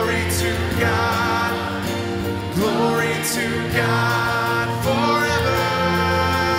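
Voices singing a church hymn with instrumental accompaniment, in sustained notes over a steady bass.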